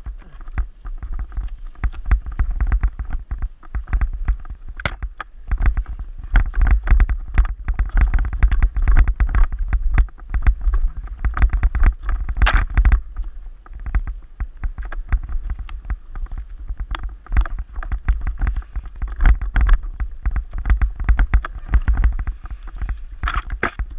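Mountain bike ridden fast over a rough, rooty forest trail, heard through a handlebar-mounted GoPro: continuous irregular clattering and knocking of the bike and camera mount over the bumps, over a low rumble, with a few sharper knocks.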